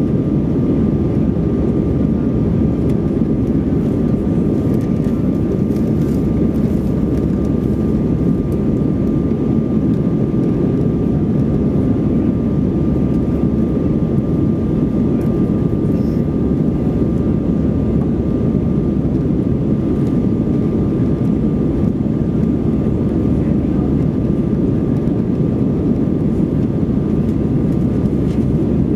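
Airbus A320 cabin noise in flight: a steady, unbroken rumble of engines and rushing air, with a thin steady whine over it.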